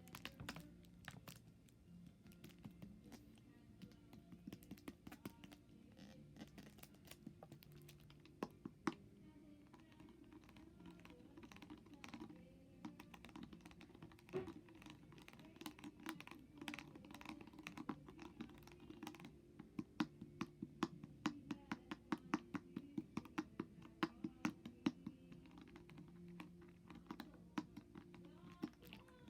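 A rapid, irregular run of sharp clicks, much like typing, that grows denser and louder about twenty seconds in, over a faint steady low hum.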